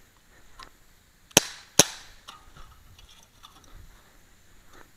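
Two sharp shots from a Colt Defender CO2 replica BB pistol, a non-blowback pistol, fired in quick succession less than half a second apart, about a second and a half in.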